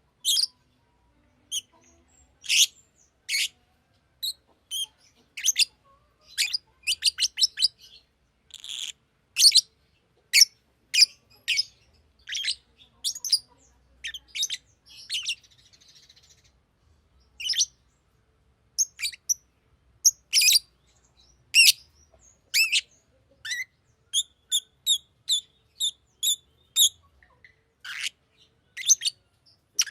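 Green lovebird chirping: short, sharp, high-pitched chirps in irregular bursts with brief pauses, including a quicker even run of calls about three-quarters of the way through.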